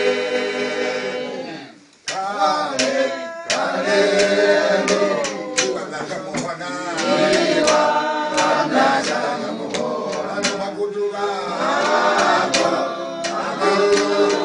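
A small group of male voices singing unaccompanied in harmony. A held chord fades out about two seconds in, then a new phrase begins, with sharp taps heard along with the singing.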